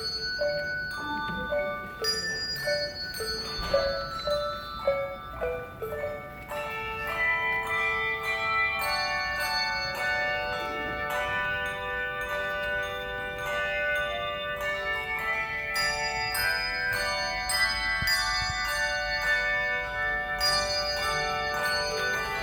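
Handbell choir ringing a hymn tune: struck handbells with long ringing decays. For the first six seconds or so single melody notes are rung one after another, then the choir fills out into fuller, overlapping chords.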